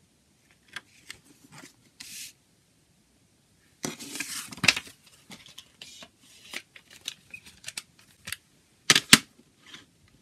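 Handling of a plastic CD jewel case and its paper booklet: scattered clicks, rustles and plastic clatter, loudest about four seconds in and again with a sharp clatter near the end as the case is set down on the table.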